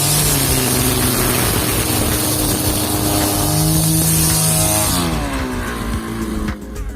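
Petrol brush cutter engine running at high speed, its pitch dipping and rising with the throttle. About five seconds in the throttle is released and the engine winds down toward idle.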